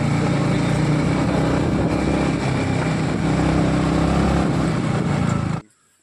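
Yamaha MT-15 motorcycle's single-cylinder engine running steadily under way, with wind noise on the helmet-mounted microphone. The sound cuts off suddenly about five and a half seconds in.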